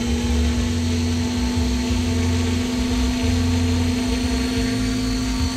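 Large RC model helicopter's motor and rotor running at a steady speed while it sits on the ground, a constant whine, with rotor wash buffeting the microphone in low gusts.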